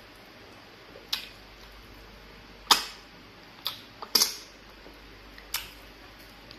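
Close-miked eating sounds from a person eating fufu and egusi soup by hand: sharp, wet mouth smacks and clicks, about seven of them, irregularly spaced, the loudest a little before three seconds in.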